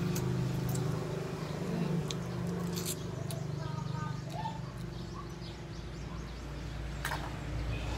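Close-up eating sounds of cooked mud crab: chewing, and the shell being picked and cracked apart by hand, with several sharp clicks, the loudest about seven seconds in. A steady low hum runs underneath.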